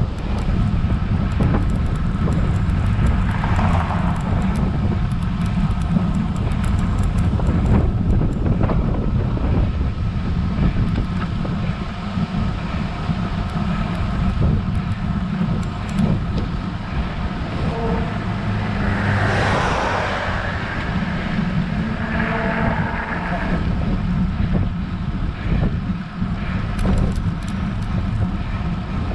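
Wind rumbling on an action camera's microphone on a road bike riding along a road, with a motor vehicle passing about two-thirds of the way through.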